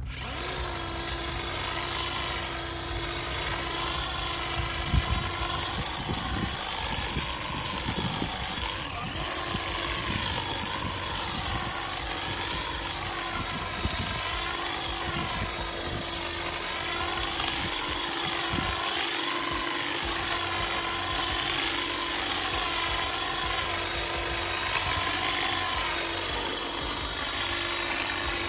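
Small petrol engine of a garden power tool running, its pitch swelling up and down about every second and a half over a constant hum.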